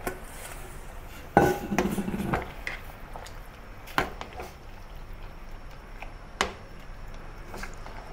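Metal bowl clattering and scraping against a stainless steel pot as chicken pieces are tipped into the broth, followed by a metal ladle stirring and clinking a few times against the pot.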